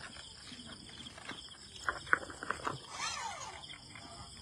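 Chorus of crickets and other night insects: a steady, high, pulsing trill. A few short clicks come about two seconds in, and a brief falling call about three seconds in.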